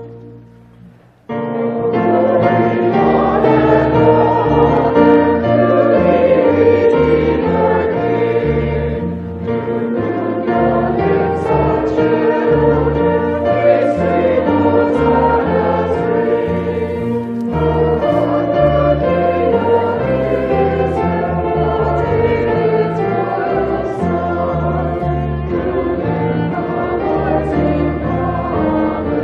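Choral church music: a choir singing with accompaniment, starting abruptly about a second in as the music before it dies away.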